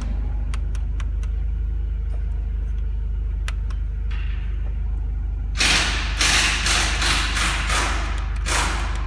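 Mercedes-Benz W208 with its engine idling, a steady low hum, with a few light clicks. A little past halfway, a run of loud hissing rushes pulses on and off for about three seconds.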